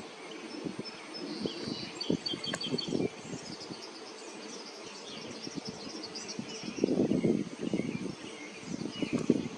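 Small birds chirping, with a quick trill of repeated high notes about two seconds in. Irregular low rustling bursts come and go, loudest about seven seconds in.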